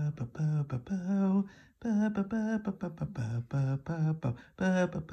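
A man's voice talking rapidly through a flat, monotone pitch effect that holds each syllable on one of two or three fixed notes, so the words can't be made out.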